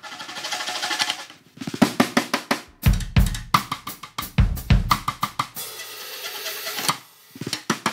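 Drumstick playing on the metal shell and tension rods of a snare drum: quick clicking strokes, then separate knocks with a few deep thuds among them. There is a rasping stretch about six seconds in, then a last few knocks.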